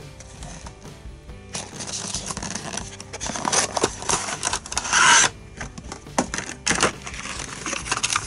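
Cardboard box flaps, a paper insert card and a clear plastic blister pack being handled and slid out, a run of rustling, crinkling and scraping with small clicks, loudest about five seconds in, over soft background music.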